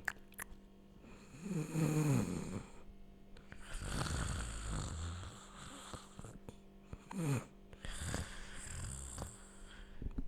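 A person snoring in a funny, exaggerated way. There is a loud pitched snore about a second and a half in, then a long breathy exhale, then shorter falling snorts near the end.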